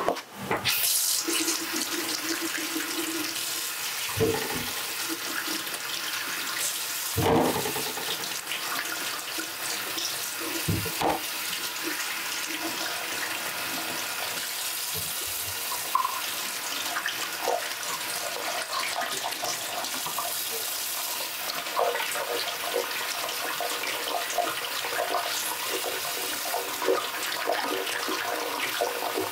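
Kitchen tap running into a stainless steel sink, the stream splashing over hands as they rub and rinse something under it. There are a few brief thuds along the way.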